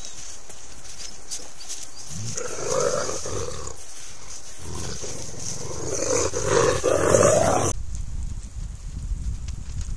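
Gray wolves growling: a short growl a couple of seconds in, then a longer, louder one that cuts off suddenly about two-thirds of the way through, leaving a low rumble.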